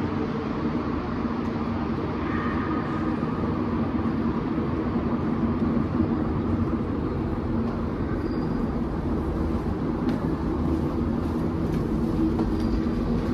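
Steady low rumble and hum of a metro station's background machinery and train noise, holding at an even level throughout.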